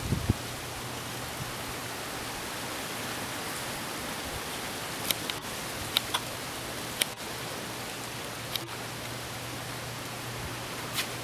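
Steady, even hiss of sea surf washing on a beach, broken by a handful of short sharp clicks.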